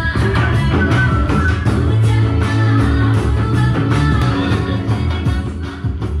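Loud rock music with guitar, heavy in the bass.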